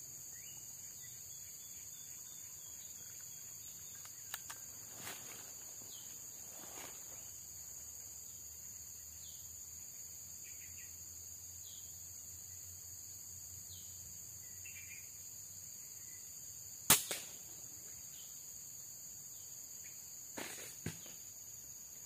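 A scoped air rifle fires once, a single sharp crack late on, followed a few seconds later by a couple of fainter clicks. Under it runs a steady high insect drone, with short faint bird chirps here and there.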